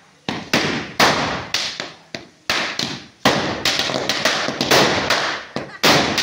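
Firecrackers strung on burning effigies going off one after another: a rapid, irregular string of sharp bangs, several a second, each trailing off.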